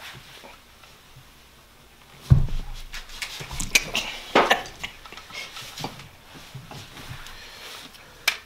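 Metal-on-metal clanking from a long torque wrench and a crank-hub holding bar on an engine's crank bolt. A heavy thump about two seconds in is followed by a few seconds of irregular clicks, clinks and rattles as the wrench is shifted on the socket, then one sharp click near the end.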